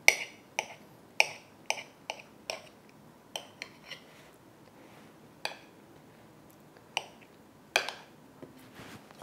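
Table knife clinking against a ceramic plate while chopping very soft, ripe camembert into small pieces: a run of sharp clicks about two a second, then a few more spaced out in the second half.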